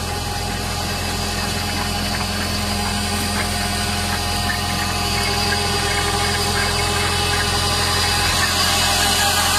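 KIRPY asparagus harvester running: a steady engine hum with machine noise over it, growing slowly louder.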